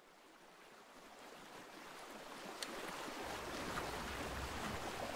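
A steady rushing noise, like wind or surf, fading in and growing louder, with a low rumble joining about three seconds in.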